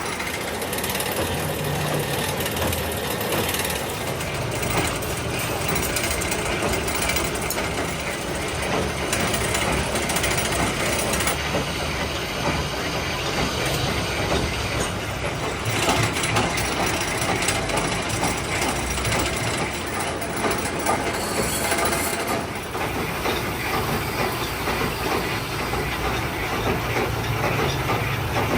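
Metalworking machine running steadily with a dense, continuous rattling clatter while a crankshaft is being machined.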